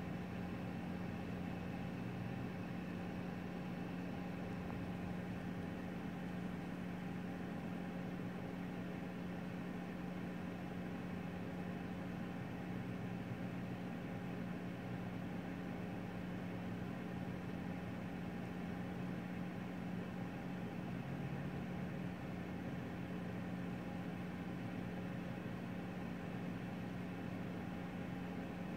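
Steady low machine hum with a faint hiss, unchanging throughout.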